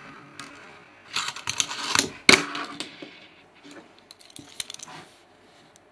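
Fingerboard deck and wheels clacking and scraping on a tabletop and a cardboard ledge: a run of clicks about a second in, one sharp clack a little after two seconds, then a few lighter ticks.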